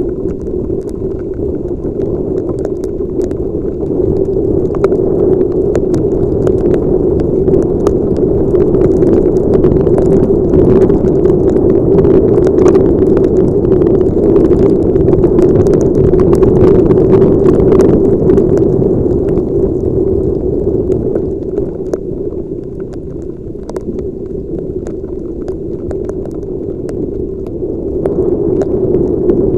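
Wind and motorcycle noise on a helmet-mounted camera's microphone while riding in heavy rain: a steady rushing hum that grows louder a few seconds in, eases off about two-thirds of the way through, and picks up again near the end.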